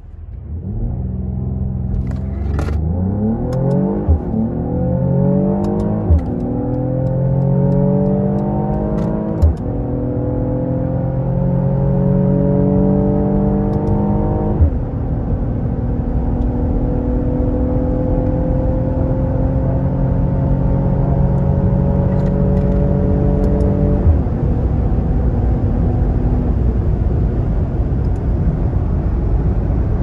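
Mercedes-AMG GLE 53's 3.0-litre inline-six accelerating hard at full throttle, heard from inside the cabin. The engine note climbs and drops sharply at each of about five upshifts of the 9-speed automatic, about 4, 6, 9 and a half, 15 and 24 seconds in. Each shift comes with a short thump, and the gears get longer each time.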